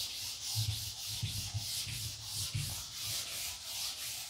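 Chalkboard duster rubbing chalk off a blackboard in quick back-and-forth strokes, a rhythmic scratchy hiss of about three strokes a second.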